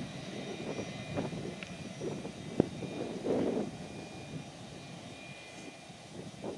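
Distant jet engine noise from a Boeing 757 freighter rolling down the runway, a low, uneven rumble. A single sharp click about two and a half seconds in.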